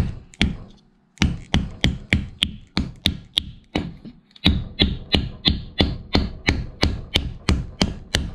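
Hammer lightly tapping a wooden wedge into the kerf in the top of an axe handle, driving it into the head's eye to lock the head on. Two taps, a short pause, then a steady run of about three taps a second, broken by a brief pause about four seconds in.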